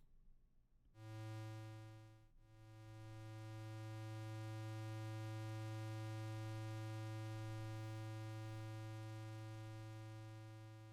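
Synthesized laser sound effect with a deep sub-bass tone: a short blast about a second in, a brief break, then a long held buzzing tone at one steady pitch that swells and slowly fades out.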